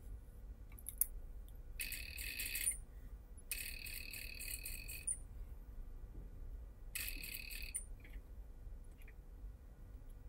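Sewing machine stitching a seam in three short runs, each about a second long, with a fast even needle rhythm. There are light clicks of handling between the runs.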